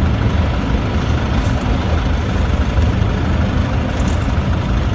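Steady low rumble of a Toyota Fortuner's engine and surrounding traffic, heard from inside the cabin while the vehicle is at a toll booth. A couple of faint light clicks come about a second and a half in and again near the end.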